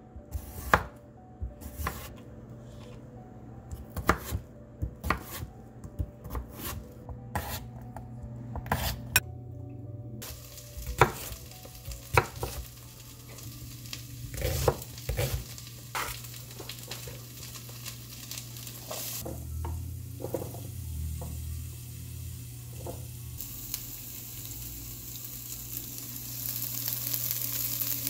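Chef's knife chopping potato and red onion on a wooden cutting board: sharp, irregular knocks through the first half. Then diced potatoes and green peppers sizzling as they fry in a pan, the sizzle growing louder near the end.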